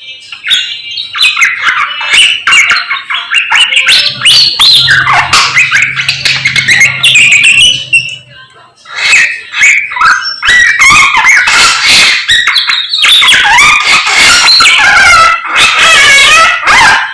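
A samyong songbird singing loudly in a fast, varied stream of whistles and harsh chattering notes, with brief breaks about eight seconds in and again near the end. A low steady hum runs underneath for a few seconds in the first half.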